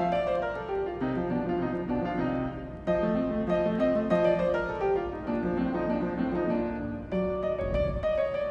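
Background music: a piano melody with a bass line, notes struck at a steady pace.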